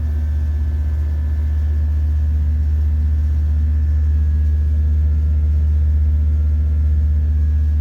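Steady low machine hum with a few faint constant higher tones, unchanging throughout.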